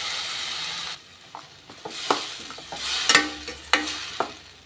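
Spinach paste sizzling in hot oil in a stainless steel pan, stopping suddenly about a second in. Then a spoon stirring and scraping the paste around the steel pan, with a few metallic clinks.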